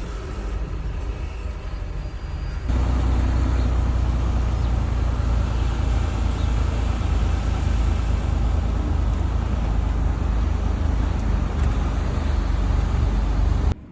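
Motor vehicle running: a steady low engine rumble with road noise, which jumps louder about three seconds in and cuts off abruptly near the end.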